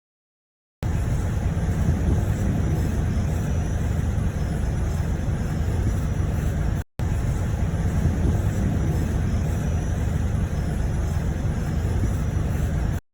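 Minibus engine and road noise heard from inside the moving vehicle, a steady low rumble that cuts out abruptly twice.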